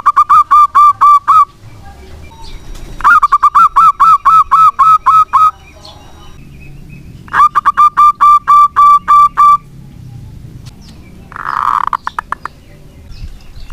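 Zebra dove (perkutut) giving its staccato cooing song: three bouts of quick, evenly repeated notes, each lasting about two seconds with a pause between them. A shorter, rougher call comes near the end.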